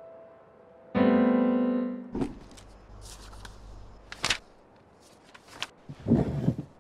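Piano music: a soft note fades, then a loud piano chord rings for about a second and stops abruptly. A few sharp clicks and short rustling noises follow, the loudest rustle near the end.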